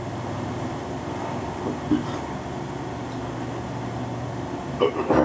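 Steady low mechanical hum of room noise, like an air conditioner or fan running, with a brief short sound about two seconds in and a few short voice-like sounds near the end.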